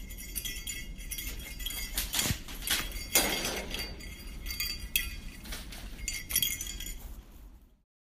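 Pet rabbit gnawing and nosing at the bars of its wire cage: repeated light metallic clinks and rattles. The sound cuts off suddenly near the end.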